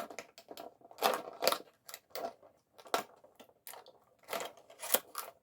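Stiff plastic blister packaging being cut with a knife and pulled at, crackling and clicking in irregular bursts.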